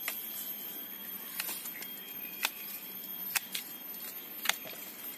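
Pruning shears snipping through serut roots: a sharp click about once a second over faint rustling.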